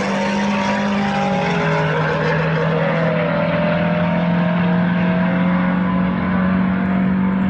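Race car engines running at full throttle in a drag race. The engine note drops about a second and a half in, as at a gear change, then climbs slowly again.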